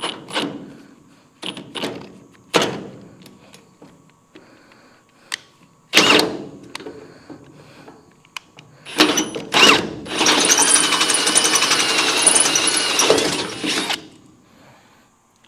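A few clicks and knocks of tools being handled, then a power drill with a helicoil kit's drill bit running for about four seconds, boring out a stripped bolt hole and cutting through easily.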